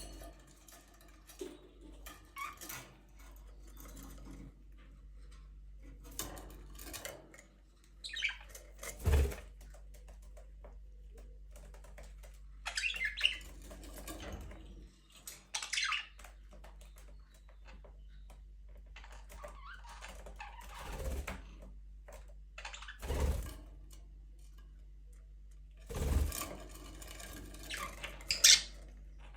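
Budgerigars chirping and chattering in scattered short bursts, with a few dull thumps and a steady low hum underneath.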